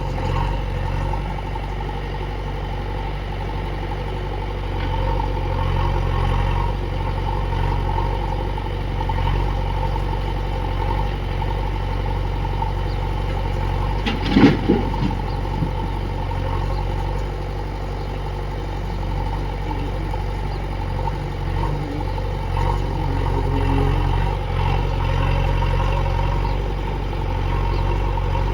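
Heavy diesel engine of a backhoe or tractor running steadily, with a brief louder burst about halfway through.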